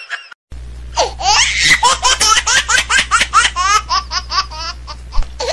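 Loud, high-pitched laughter in rapid repeated bursts, about four or five a second, starting about a second in, over a low steady hum.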